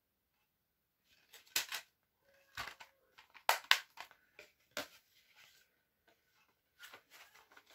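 A plastic Blu-ray case being handled and snapped shut: a scattering of short, sharp plastic clicks and snaps, the loudest a few seconds in.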